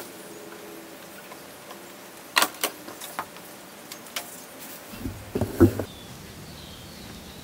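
Handling noise from a plastic blender jar and a large plastic syringe: a few sharp clicks and knocks while oil is poured into the syringe. The loudest bumps come a little past halfway, as the syringe is pressed onto a brass fitting.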